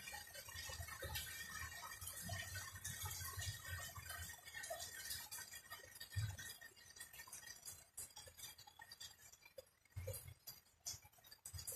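Faint, irregular ticks and taps of rainwater dripping onto surfaces after rain, with a low rumble coming and going. The dripping thins out after about eight seconds.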